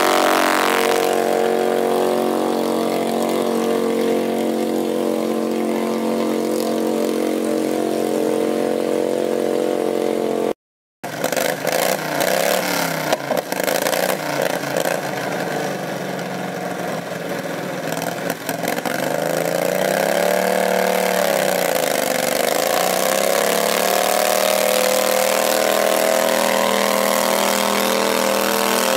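Pulling garden tractor engine running hard and steady under load while dragging the sled. After a brief cut, an engine runs on, its pitch dipping and climbing back about two-thirds of the way through.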